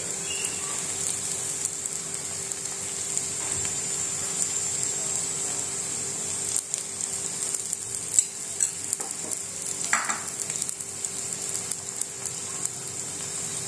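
A stuffed paratha frying in oil on a hot iron tawa, sizzling and crackling steadily, with a metal spoon scraping and tapping on it as oil is spread over the top.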